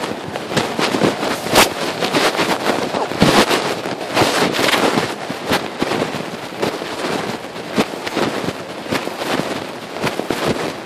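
Pocket fabric rubbing and scraping against a phone's microphone as its owner walks: a continuous, dense crackling rustle.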